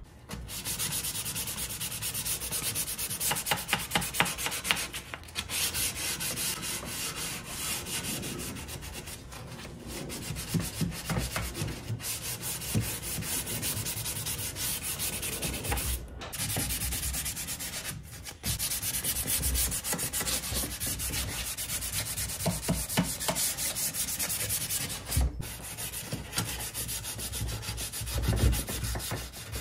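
150-grit sandpaper rubbed by hand back and forth along the wooden drawer rails of a dresser frame: continuous quick scratchy strokes of scuff sanding, with a few brief breaks.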